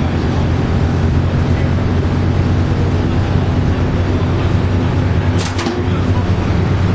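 Interior drone of a 2012 New Flyer XD40 city bus under way at cruising speed: its Cummins ISL9 diesel engine running steadily, blended with road and tyre noise. A short burst of clicks comes about five and a half seconds in.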